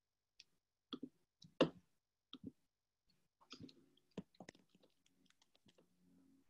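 Faint, irregular clicks from a computer mouse and keyboard being used, with a denser run of clicks in the middle.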